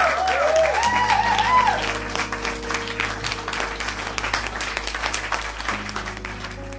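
Crowd applause with a few cheering whoops in the first two seconds, over soft background music; the clapping tapers off toward the end.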